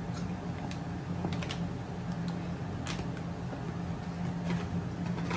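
A few light, scattered clicks and rustles from handling a cardboard Pringles can and its plastic lid, over a steady low hum.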